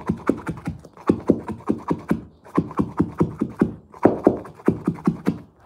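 A carpet stair tool is worked rapidly along the skirting board, tucking the carpet edge down over the gripper strip. It makes quick, irregular tapping and scraping strokes, about five or six a second, in short runs.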